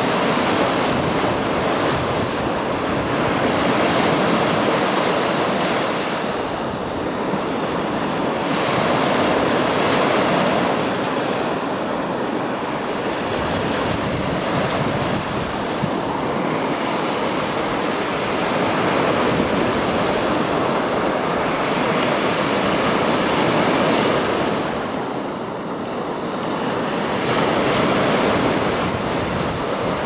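Lake waves breaking and washing up a sandy shore: a continuous rush of surf that swells and eases every few seconds.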